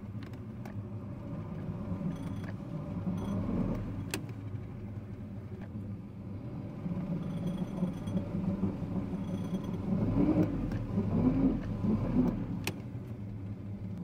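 Johnson 175 carbureted V6 two-stroke outboard running on a flushing hose, a steady engine note whose speed swells and wavers briefly a few seconds in and again about ten seconds in. It may have a slight miss.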